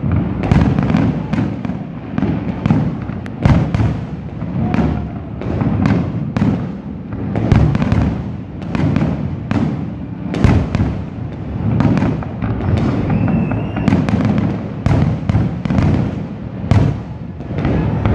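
Fireworks display: aerial shells bursting in an irregular run of sharp bangs, about two a second, over a continuous low rumble, the loudest bang about halfway through.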